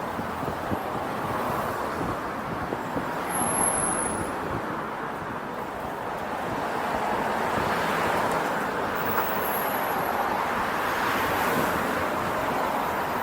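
Steady city street traffic noise, swelling as vehicles pass about four seconds in and again in the second half.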